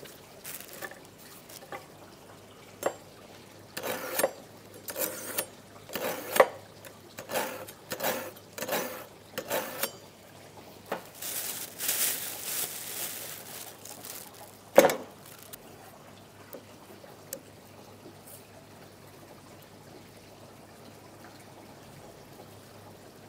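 Household clatter: a run of irregular knocks and clinks, then about two seconds of rushing water, and one sharp loud knock.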